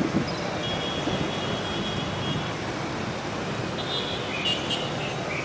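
Dense motorbike and car traffic at a busy intersection, a steady mass of engine and tyre noise. High, held horn tones sound about half a second in for roughly two seconds, and again near the end.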